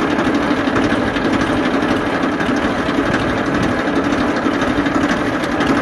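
Tractor engine idling steadily with a fast, even running beat.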